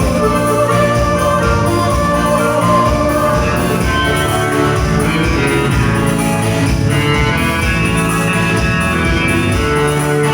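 Live band music at a dance: an instrumental passage without singing, with a steady beat.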